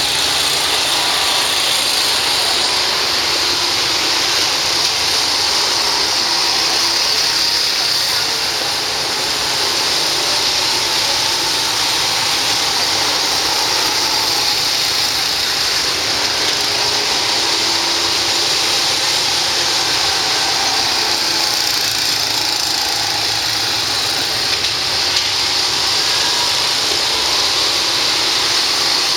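Go-kart engines running steadily under a constant hiss.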